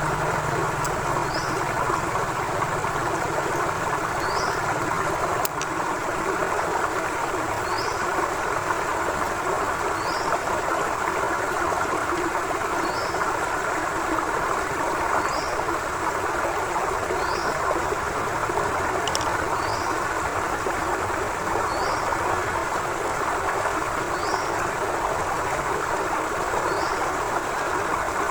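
Forest river water flowing steadily, a constant rushing over rocks. A short high chirp repeats about every two seconds above the water.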